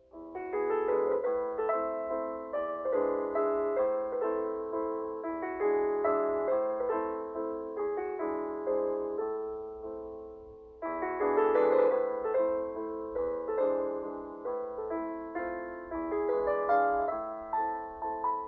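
Background piano music: a gentle melody of single notes, each fading after it is struck, dipping away at about ten seconds before a new phrase begins.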